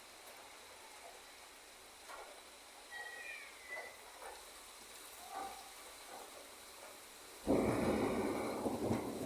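Rain falling in a steady hiss during a thunderstorm; about seven and a half seconds in, a sudden loud crack of thunder breaks in and rumbles on, slowly fading.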